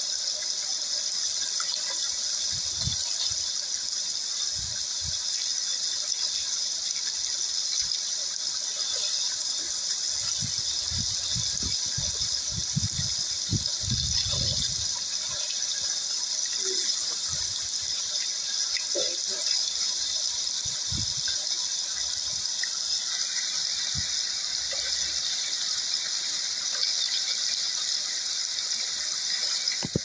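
Shallow stream rushing steadily over a gravel bed, with occasional low thumps.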